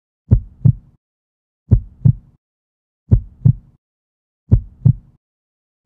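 Heartbeat sound effect: slow lub-dub double thumps, four beats about a second and a half apart.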